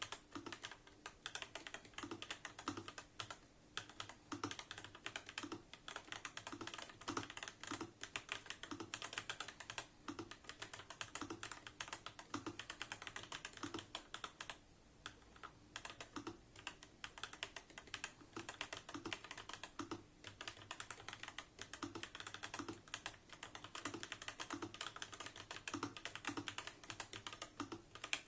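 Fast, continuous typing on a Yunzii QL75 mechanical keyboard with Coco Cream V2 linear switches and typewriter-profile keycaps: a dense stream of key clicks, pausing briefly a few times.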